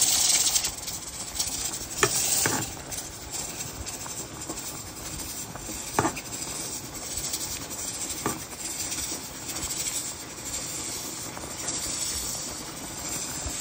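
A pot of rice-and-peas cooking liquid boiling hard, a steady bubbling hiss, with a few short sharp clicks.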